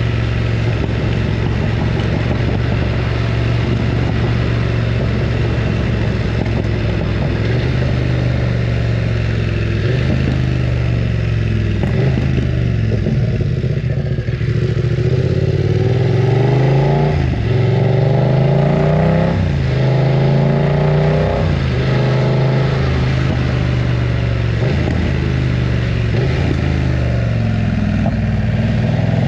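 BMW F900 R's parallel-twin engine running loud while ridden. It holds steady for the first several seconds, then its pitch rises and falls back again and again every second or two as the throttle is worked.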